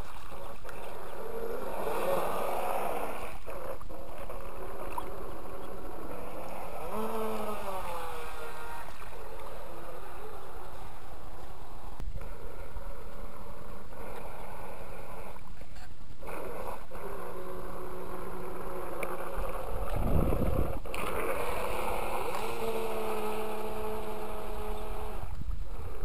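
Radio-controlled model boat's motor running on the water, its whine rising and falling in pitch as the throttle changes. A brief low rumble about twenty seconds in.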